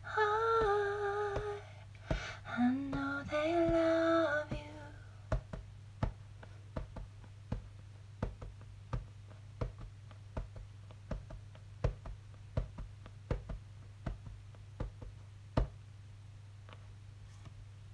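A woman humming the last few held notes of a song, unaccompanied, for the first few seconds. Then comes a run of irregular soft clicks, about one or two a second, over a steady low electrical hum.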